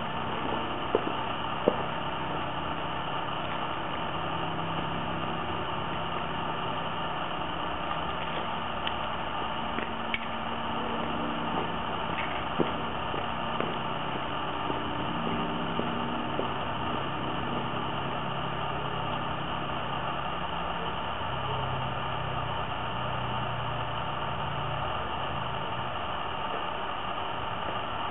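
A steady low engine-like hum under a constant hiss, its pitch shifting slowly. A few sharp footstep clicks come in the first two seconds, and fainter clicks come around ten to thirteen seconds in.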